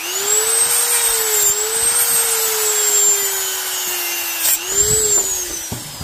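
Dremel rotary tool with a cut-off wheel whining as it cuts through the metal strips joining the cells of a lithium-ion battery pack. The pitch sags as the wheel bites and recovers, dips hard once more about four and a half seconds in, then falls as the motor winds down near the end.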